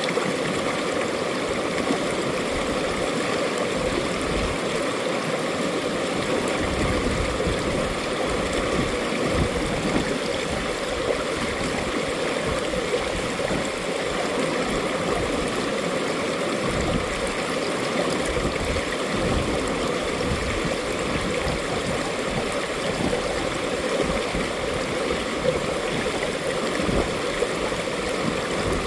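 Mountain valley stream running steadily over rocks, a continuous rushing and gurgling of water.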